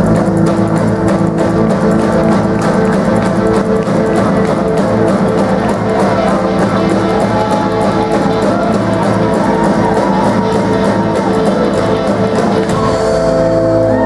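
Live rock band playing an instrumental passage at a driving beat: drum kit, electric guitars and upright bass.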